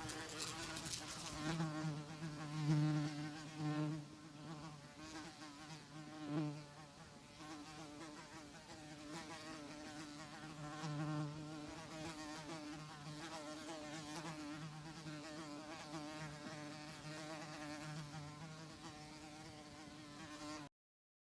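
Housefly buzzing: a wavering, pitched drone that swells louder and fades several times, then cuts off suddenly near the end.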